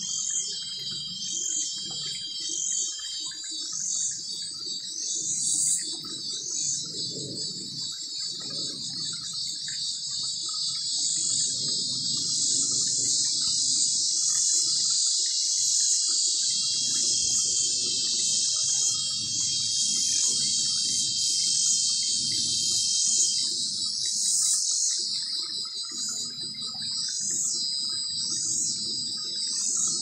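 Cicadas shrilling in a loud, steady high chorus, with one call pulsing about once a second near the start and again near the end. A faint, uneven low hum runs underneath.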